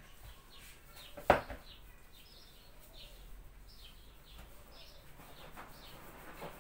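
A single sharp knock about a second in, from a hand against a plastic mixing bowl of dough, then faint high bird chirps repeating every fraction of a second.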